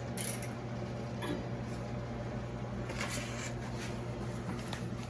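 Steady low electrical hum with a few faint clicks and rustles of handling.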